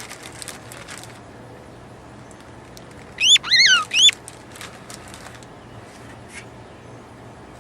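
A bird calling loudly: three quick chirps about three seconds in, each rising and then falling in pitch.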